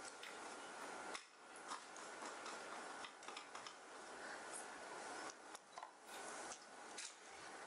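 Quiet room tone with scattered small clicks and ticks.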